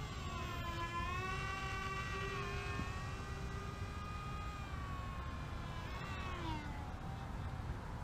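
Electric motors and propellers of a small foam RC C-17 Globemaster III model whining in flight. The pitch wavers, then slides down about six to seven seconds in.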